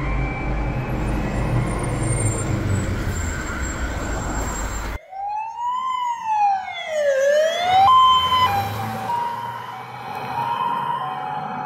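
Fire engine's two-tone siren alternating between two pitches over a heavy low rumble. After a sudden cut about five seconds in, another emergency vehicle's siren sweeps up and down in a wail, then switches to a two-tone pattern.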